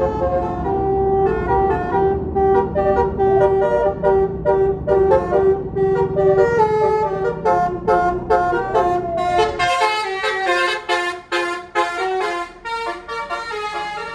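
A bus's basuri telolet horn, a multi-tone musical horn, playing a fast tune of short stepped notes over the rumble of the bus engine. About ten seconds in the engine rumble drops away while the horn tune carries on.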